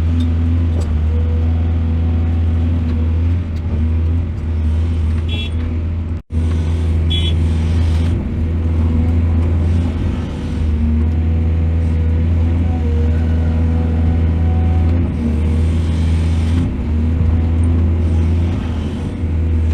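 Heavy diesel earthmoving machinery running steadily under load, with a deep, even drone and a few brief high squeaks. The sound cuts out for an instant about six seconds in.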